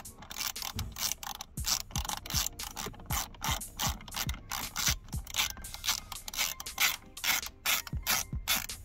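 Ratchet screwdriver clicking steadily as it turns a screw out of a plastic dashboard trim panel, about two to three clicks a second.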